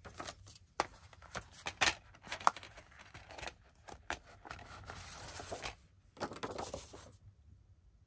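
A plastic DVD case and its packaging being handled: a run of sharp clicks and taps for the first couple of seconds, then two stretches of rustling and sliding that stop about seven seconds in.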